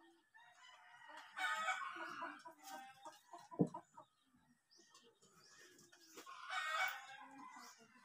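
A rooster crowing twice, once about a second in and again near the end, with a single sharp knock in between.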